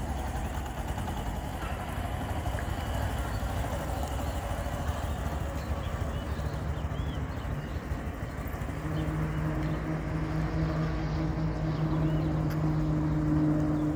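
Small single-cylinder motorcycle engine running at idle as the bike rolls slowly in gear without throttle. A steady hum comes in about eight and a half seconds in and grows a little louder toward the end.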